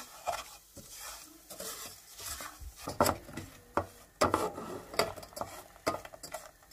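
A spatula stirring and scraping lumpy sugar syrup around an aluminium saucepan, with irregular knocks against the pot; the loudest strokes come about 3 and 4 seconds in. The sugar and water are melting down into caramel.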